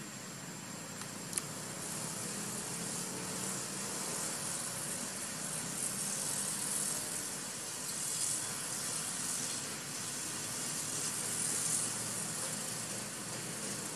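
Steady outdoor background hiss, strongest in the high range and swelling slightly now and then, with one sharp click about one and a half seconds in.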